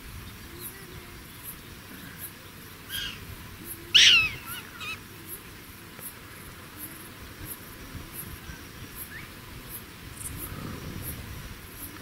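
Black-tailed prairie dog giving short, sharp, high barks: a faint one, then a loud one about four seconds in that drops quickly in pitch, then a faint echoing call just after.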